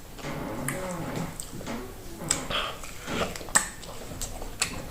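Close-up eating sounds of fufu with okra soup: wet chewing and lip smacks, with a string of sharp, short mouth clicks spaced irregularly through it.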